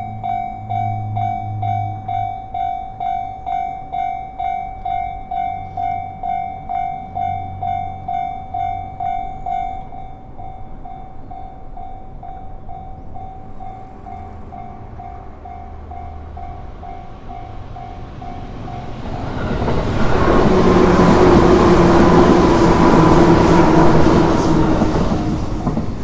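Japanese level-crossing alarm ringing a steady, repeating electronic ding, just under two a second; it turns quieter about ten seconds in. Near the end a Chuo Line train passes through the crossing for about six seconds: a loud rush of wheels and motor hum that drowns the bell, which carries on faintly after it.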